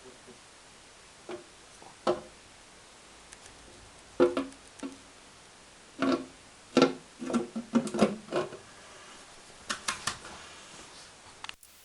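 Background music: sparse plucked guitar notes, a few single notes and then short runs of several notes that each ring and die away.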